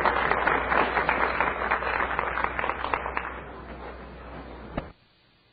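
Audience applause that thins out and dies away over a low steady hum; the recording then cuts off abruptly near the end, leaving near silence.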